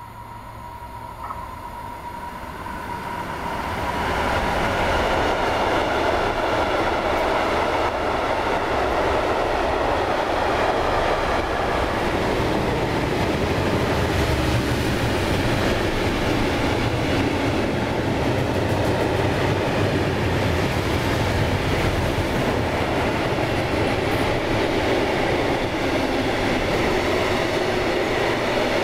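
Freight train headed by an electric locomotive, growing louder as it approaches over the first few seconds, then a steady rumble and clatter of mixed freight wagons (tank, covered coil and sliding-wall wagons) rolling past close by.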